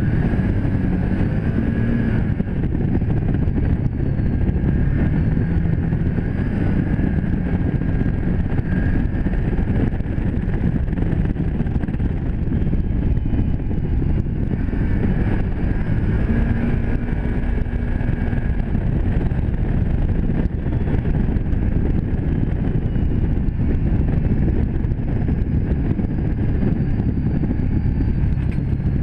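Can-Am Commander 1000 side-by-side's V-twin engine running steadily as it drives along a dirt trail, heard from the driver's seat of the open cab. The engine note rises and falls a little as the throttle changes.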